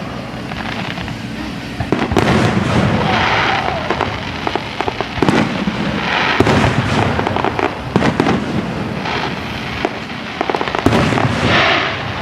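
Aerial fireworks going off: several sudden booms, each followed by a burst of crackling, over a continuous rumble of the display.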